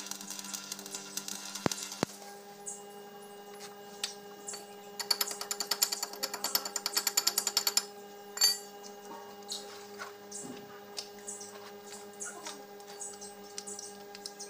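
Stick welding arc crackling and hissing on a cast iron tractor rear axle for about two seconds, then cutting off. A few seconds later comes a fast, even run of metal strikes lasting about three seconds, then one loud knock and scattered light taps on the metal as the weld is worked, with a steady electrical hum underneath.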